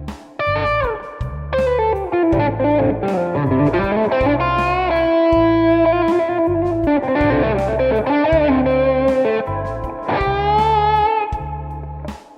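Electric guitar playing a lead line in A minor pentatonic, with string bends and vibrato on held notes, over a backing track with a steady bass line and drums.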